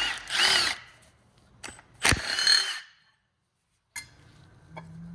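A cordless power tool runs in two short bursts, its motor pitch bending as it undoes Torx T30 bolts on the engine's camshaft bearing caps. There is a sharp clunk about two seconds in. The sound drops out entirely for a moment past the middle, and only light clicks follow.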